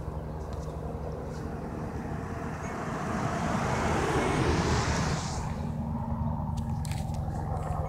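Police helicopter overhead, its engine and rotor giving a steady low hum with several held tones. A louder rushing sound swells from about three seconds in, peaks, and fades a couple of seconds later.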